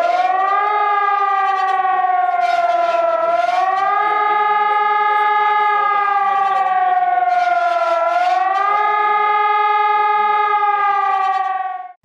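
Electronic civil defence siren, a mast of stacked horn loudspeakers, sounding a rising-and-falling warning wail during a test alarm. The pitch rises quickly and then slides down slowly, about every four to five seconds, and the tone stops just before the end.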